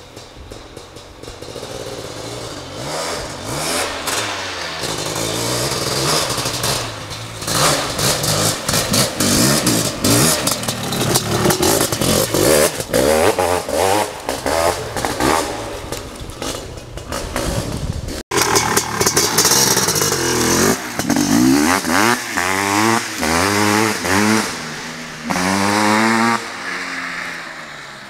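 Honda CR500 two-stroke dirt bike engine with an FMF exhaust, revving hard while ridden, its pitch sweeping up and falling off again and again as the throttle is worked and gears change. It builds in loudness over the first few seconds, cuts out for an instant about two-thirds through, then gives several more sharp rising revs before fading near the end.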